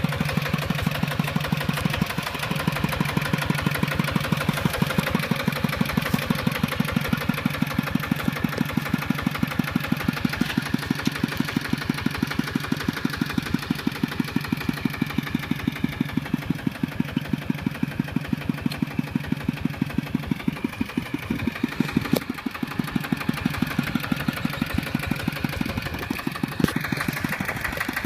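Single-cylinder Kubota RT140 diesel of a walk-behind tractor running with a rapid, even chugging beat while it drives the iron cage wheels through mud.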